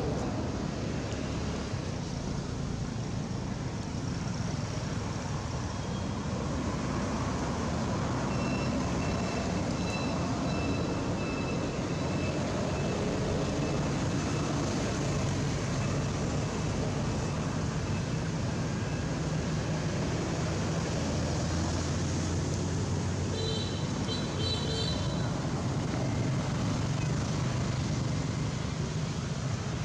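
Steady rumble of nearby road traffic with a low engine hum, and short high-pitched chirps twice, once about a third of the way in and again near the end.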